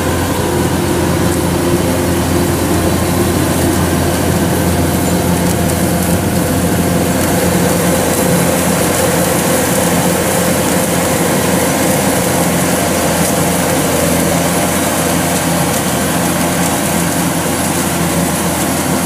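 Kubota DC-105X combine harvester running steadily while cutting and threshing rice: an even, unbroken machine drone from its diesel engine and threshing gear.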